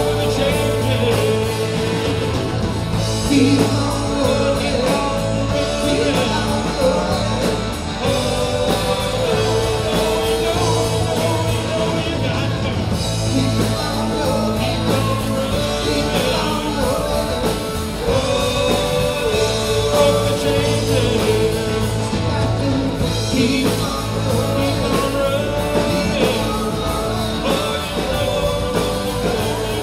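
Live rock-and-roll band playing a song, with singing over the music.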